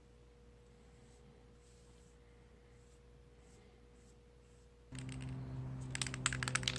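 Faint room tone, then about five seconds in a steady low hum starts abruptly, followed near the end by a quick run of sharp clicks.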